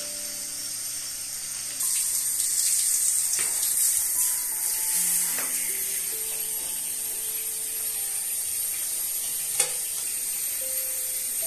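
Hand-held shower spraying water onto a tiled floor, a steady hiss that grows louder about two seconds in, under soft background music. A single sharp click near the end.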